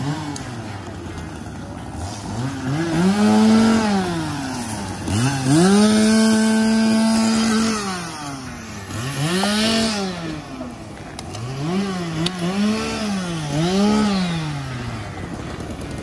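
Two-stroke chainsaw cutting up a fallen tree. It revs up and down in repeated throttle bursts and is held at full throttle for about two seconds near the middle.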